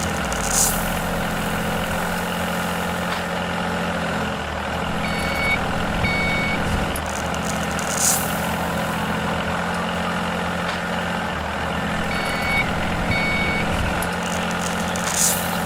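Heavy vehicle engine running steadily, with a reversing beeper sounding two short beeps about five seconds in and two more about twelve seconds in. Three short hisses, at the start, in the middle and near the end.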